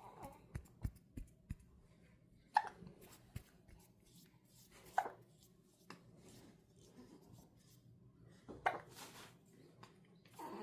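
A one-month-old newborn hiccuping: three short, sharp hiccups a few seconds apart, with faint clicks in between.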